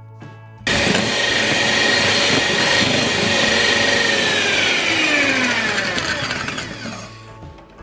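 Electric hand mixer beating eggs and sugar in a stainless steel bowl: it starts suddenly about a second in and runs with a steady whine, then its pitch falls as it slows and fades out near the end.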